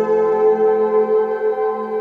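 Background music of long, held, overlapping tones that shift slowly.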